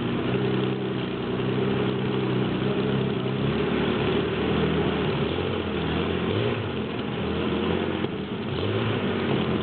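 Bluebird K3 hydroplane's Rolls-Royce R V12 aero engine running. It holds a steady speed at first, then from about three seconds in its speed rises and falls as the throttle is worked.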